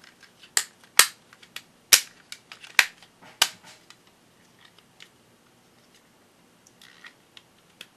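Hard plastic toy parts clicking and knocking as they are handled: about five sharp, loud clacks in the first few seconds, then fainter scattered clicks.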